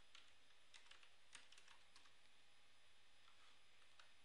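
Faint typing on a computer keyboard: scattered single keystrokes, most in the first two seconds and one more near the end, over a low steady hum.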